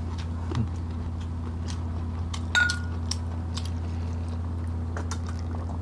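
Table noises while eating and drinking: small scattered clicks and mouth sounds, then one sharp clink of tableware about two and a half seconds in that rings briefly, over a steady low hum.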